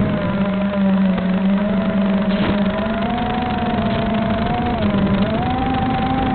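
Motor and propeller of a radio-controlled aircraft whining steadily, the pitch wavering and stepping up a little about five seconds in, over wind noise on the microphone.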